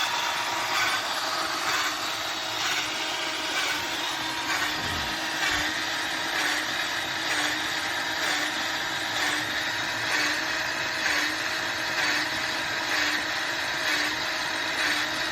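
Electric drill running steadily to drive a grease gun adapter's pump, its motor and gear whine pulsing slightly a little faster than once a second.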